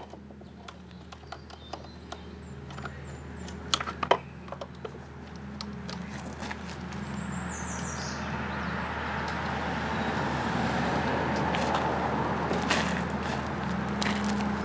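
Sharp clicks and metal knocks from hands and tools working on an outboard powerhead hung from a chain, mostly in the first few seconds, with a short squeak about seven seconds in. A steady low engine-like hum runs underneath, and a rushing noise grows louder through the second half.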